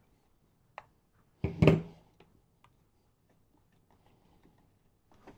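Handling noises as the clutch cover of a Stihl MS201T chainsaw is taken off: a small click about a second in, a louder knock or clatter at about a second and a half, then a few light ticks.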